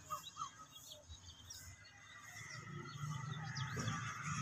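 Small birds chirping, then the low rumble and rushing noise of an approaching train, growing steadily louder from about halfway through.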